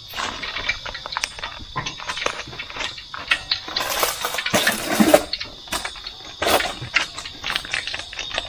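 Plastic packets crinkling and rustling in the hands as salt is shaken from a bag over cut catfish pieces, then a small seasoning sachet is handled near the end. A steady high cricket chirr continues behind.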